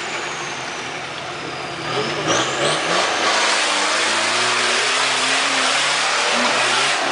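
Off-road 4x4's engine revving hard under load as it climbs a muddy rut; the engine note rises and falls from about two seconds in, with a loud rushing noise swelling over it.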